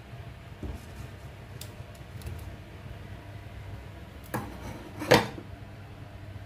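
A few light knocks and clinks of a utensil or dish against a metal cooking pot, the sharpest about five seconds in, over a steady low hum.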